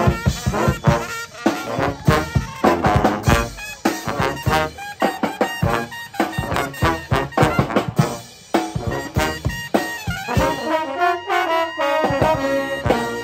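Dixieland-style brass band, trombones and sousaphone over drums, playing a fast, punchy tune. About ten seconds in it settles onto a long held final chord.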